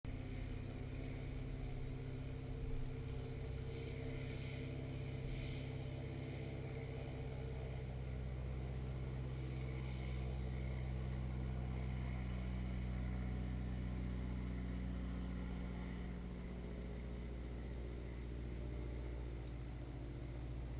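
Bass boat's bow-mounted electric trolling motor humming steadily, its pitch shifting slightly about two-thirds of the way through.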